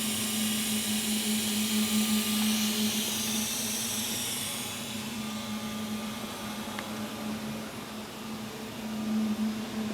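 Sunrise 110-ton ironworker's hydraulic power unit running steadily: a constant low hum with a hiss over it.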